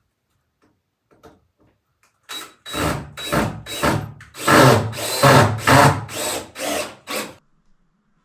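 Cordless drill driving screws into the wooden door frame overhead, run in about ten short bursts over five seconds, starting about two seconds in.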